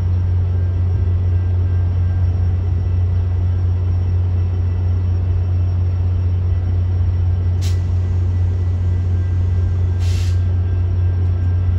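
Metra diesel locomotive No. 98 standing at the platform with its engine running in a steady low drone, and two short hisses of air, one about eight seconds in and a slightly longer one about ten seconds in.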